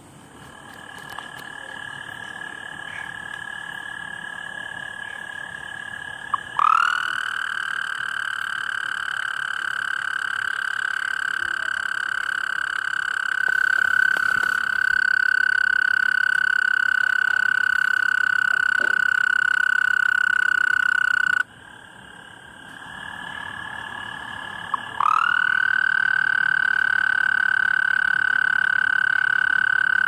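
A loud, steady, high-pitched call from a night-calling animal. It builds up gradually, swoops up into a louder held tone about six seconds in, breaks off abruptly about twenty seconds later, then builds and swoops up into the same held tone again near the end.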